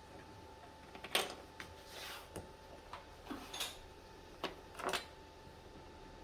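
Faint scattered clicks and short scrapes, about eight in the first five seconds, like small objects being handled, over a faint steady hum.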